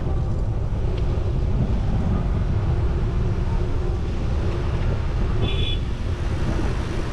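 Wind buffeting the microphone of a camera on a moving road bike, a steady low rumble. A brief high-pitched chirp sounds about five and a half seconds in.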